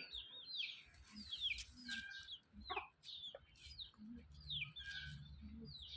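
Chicks peeping: many short, high-pitched calls, each falling in pitch, several a second. A steady low hum joins about four seconds in.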